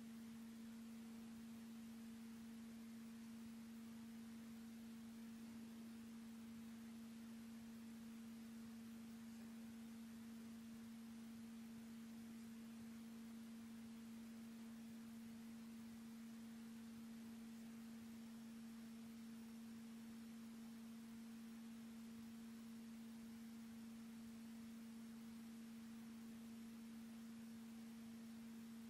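Near silence with a faint, steady low hum at one unchanging pitch, plus a fainter overtone an octave above it. A very faint high whine joins about two-thirds of the way through.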